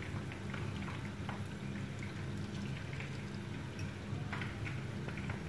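Beaten eggs with milk poured from a glass bowl into a frying pan of hot melted butter, with faint scattered crackles over a steady low hum.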